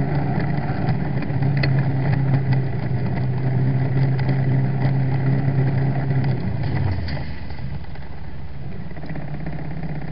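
A steady low motor hum with road and wind noise and a few faint clicks. The hum drops away about seven seconds in and the sound goes quieter.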